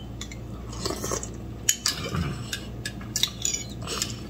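Metal spoon clinking and scraping against a soup bowl while eating soup: a few irregular light clicks and short scrapes.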